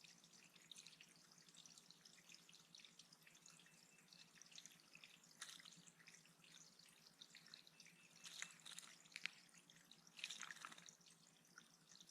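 Water dripping and trickling into a small bird pond, a steady faint patter of drops, with a few louder splashes in the second half.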